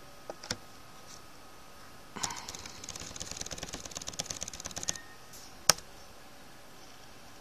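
Computer keyboard typing: a couple of single keystrokes, then a quick, steady run of keystrokes for almost three seconds, and one sharp, loud key click about two-thirds of the way through.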